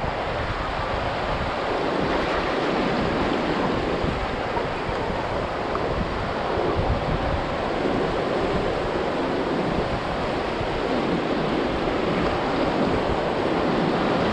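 Sea surf washing steadily, gently rising and falling, with wind rumbling on the microphone.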